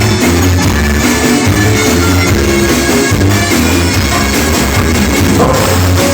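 Loud melody, the Pará brega dance style, with drum kit, guitar and a steady repeating bass beat.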